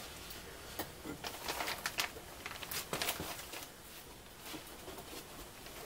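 Scattered light clicks, taps and rustles of a car door's window glass and inner parts being handled as the glass is worked into its channel.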